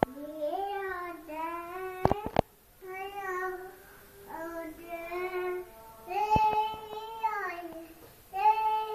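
A young child singing a song in short phrases with brief pauses, with a few sharp knocks in between.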